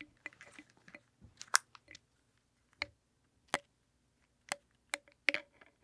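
Handling noise on a wireless lavalier transmitter: about half a dozen short, faint clicks and rubs, spaced irregularly, as the lavalier microphone's cable is unplugged from the transmitter and the unit is handled.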